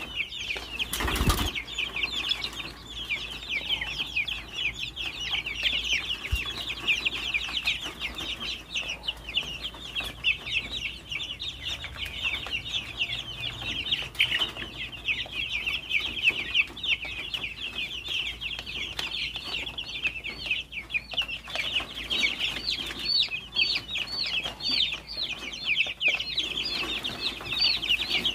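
A flock of young chicks peeping continuously, many short, high-pitched cheeps overlapping. A brief thump about a second in.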